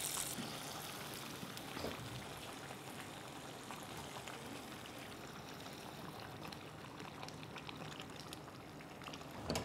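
Dal makhani simmering in an enamelled cast-iron pot, bubbling faintly as a wooden spoon stirs through it, with small scattered clicks and splashes.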